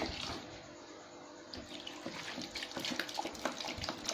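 Liquid marinade sloshing and splashing in a basin. It is quieter at first, then busy with many small irregular splashes from about a second and a half in.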